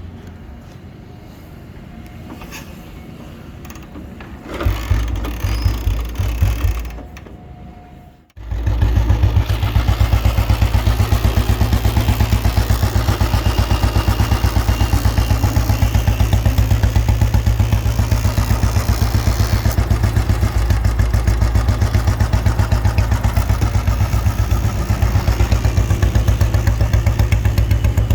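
Royal Enfield Bullet Electra 5S single-cylinder engine: it runs briefly about five seconds in and dies away. It is started again near eight seconds and settles into a steady idle with its even, low beat.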